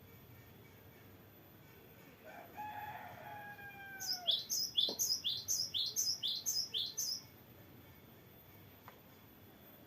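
Cinereous tit (gelatik batu) singing a fast roll of about ten high, sweeping notes over roughly three seconds. Just before it, a rooster crows in the background.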